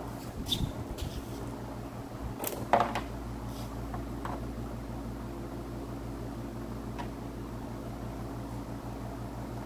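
Steady mechanical fan hum, with a few short clicks and knocks over it, the loudest about three seconds in.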